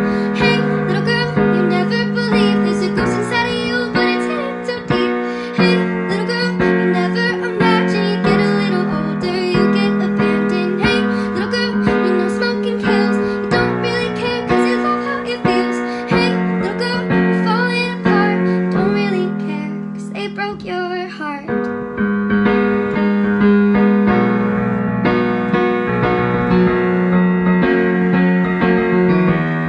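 Nightcore edit of a pop song, sped up and pitched up, with high female singing over piano and keyboard. Around 21 seconds in the music briefly dips and thins, then the piano carries on.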